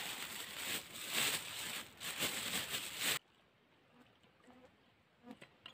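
Thin plastic bag rustling and crinkling as it is handled, for about three seconds, then cutting off suddenly; afterwards only a few faint ticks.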